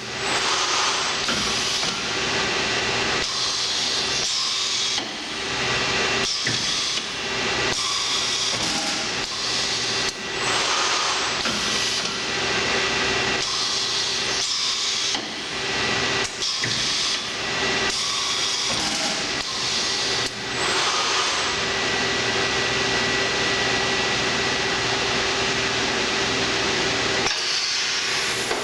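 Sencorp 2500 roll-fed thermoformer running: a steady machine hum under hissing air, with abrupt bursts and clunks about every second for most of the stretch, settling into a steadier hiss near the end.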